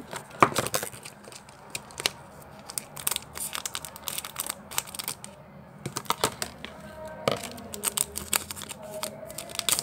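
Foil wrapper of a Pokémon card booster pack crinkling in the hands and being cut open with scissors: a string of short, sharp snips and crackles in several clusters.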